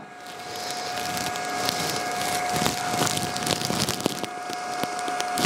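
A small machine whirs: it starts and builds over about the first second, then runs steadily with a constant mid-pitched hum tone. A few light clicks sound over it.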